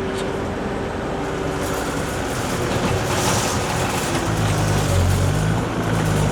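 Diesel engine of a Case TR320 compact track loader running steadily while it works. About four seconds in, a deeper, stronger engine note comes in.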